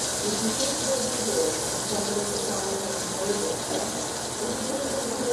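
Food sizzling steadily in a frying pan on a gas stove while it is stirred.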